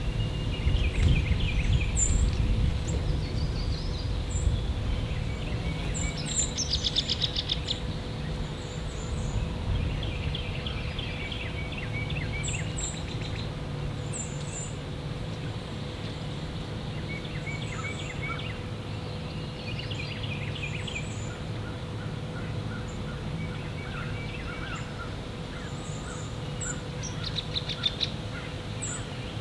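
Wild songbirds calling: scattered short chirps and whistles, with two fast trills, one about a quarter of the way in and one near the end. A low rumble underneath is strongest in the first few seconds.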